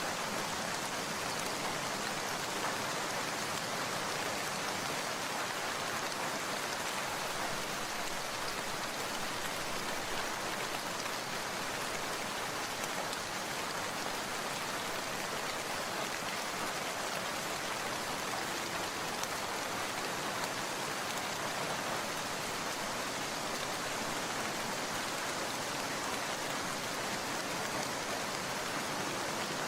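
Steady rain falling: an even, unbroken hiss of many drops, with no single drops, thunder or gusts standing out.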